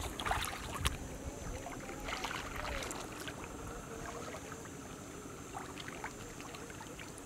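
Water sloshing and lapping in a steady low rumble, with a few light knocks.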